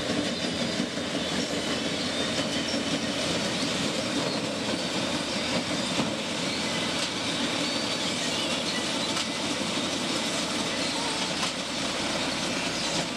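Standard combine harvester running, a steady mechanical drone that holds at an even level.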